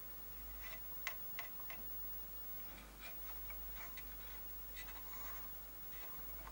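Light, irregular ticks and small scrapes of a cotton swab's wooden stick against the metal head rail and carriage of an opened Commodore 1541-II floppy drive as grease is dabbed on, with a faint low hum underneath.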